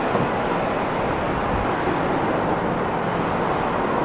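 Twin-engine jet airliner just after touchdown, its engines giving a steady, even rushing noise as it rolls out on the runway.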